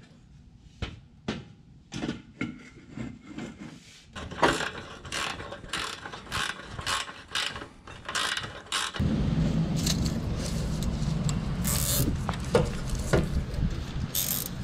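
Ratchet wrench clicking in repeated strokes as bolts are run down on the buggy's fuel tank bracket. A few scattered clicks come first, and the strokes get busier from about a third of the way in.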